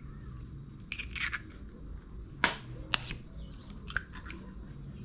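Eggshell tapped twice against a metal spoon to crack it: two sharp clicks about half a second apart, with softer shell crackling and scraping around them as the egg is broken open.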